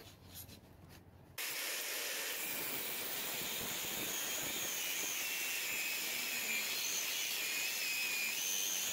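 Angle grinder with a thin cutoff wheel cutting through a rusted shackle nut, starting abruptly about a second and a half in. A steady hiss of the disc biting into the steel, with a high whine that wavers as the cut loads it.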